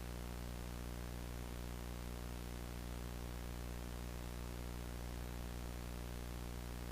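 Steady low electrical hum under an even hiss, unchanging in level.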